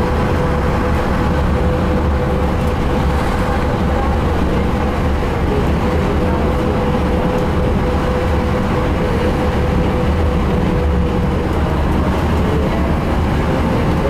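Cabin noise inside a moving bus: steady engine drone and road rumble, with a steady whine that fades out about two-thirds of the way through.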